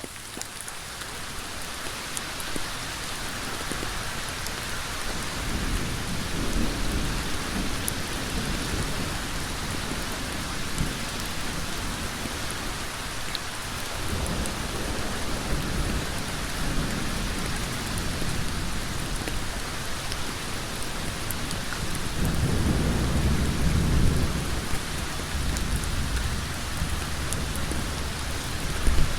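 Heavy rain falling steadily on a road surface, a dense hiss that fades in over the first couple of seconds. Slow swells of low rumble rise and fall three times, and there is a brief louder hit near the end.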